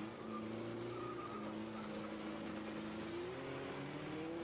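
Engines of several demolition derby cars running and revving together, their pitch rising and falling as the cars manoeuvre, with one climbing near the end.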